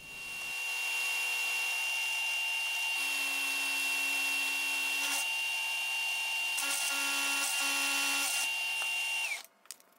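Bridgeport milling machine's end mill cutting metal, played back fast-forwarded: a steady high whine over a hiss of cutting. Near the end the whine slides down and the sound cuts off.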